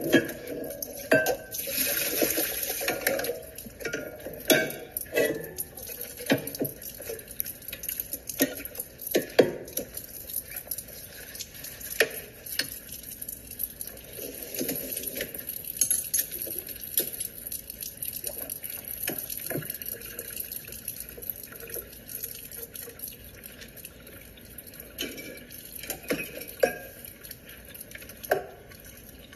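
Water running into a kitchen sink, with irregular clinks and knocks of dishes and utensils being handled, heard as played back from a TV.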